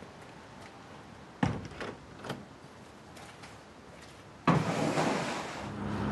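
Plastic crates knocking and clattering as they are set down in the back of a van, about a second and a half in, a few quick knocks. About three seconds later comes a loud sudden bang or rush of noise, and near the end a steady engine hum with road noise.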